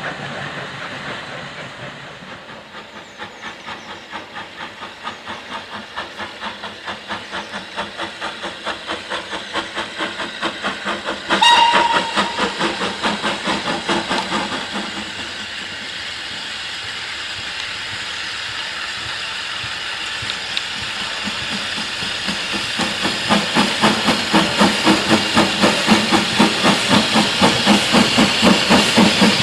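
Southern Railway Q class 0-6-0 steam locomotive No. 30541 working towards the listener, its exhaust beats coming steadily and growing louder as it nears, over a hiss of steam. About a third of the way in it gives one blast on its steam whistle, which fades over a few seconds.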